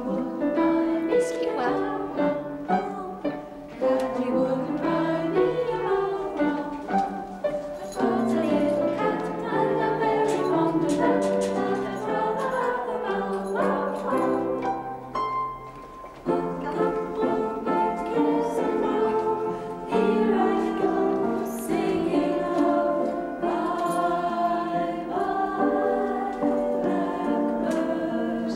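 A group of women's voices singing a song together in chorus, in phrases with short breaks between them.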